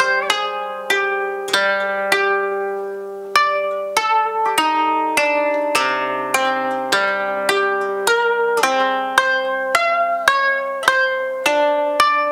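Koto, the Japanese thirteen-string zither, played solo: unhurried single plucked notes, roughly two a second, each ringing and fading, with a few notes bent in pitch and a fuller low chord about halfway through.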